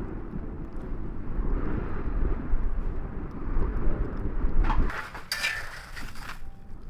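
Blizzard wind buffeting the microphone as a deep, steady rumble that drops off about five seconds in. A brief rustling, crunching noise follows.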